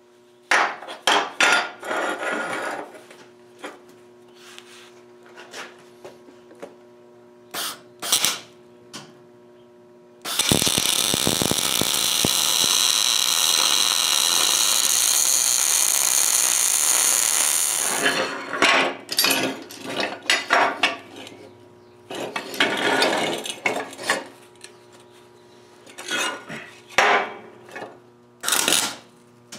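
MIG welder arc crackling and hissing on steel square tubing: a few short tack welds, then one continuous bead of about eight seconds, then more short bursts of welding.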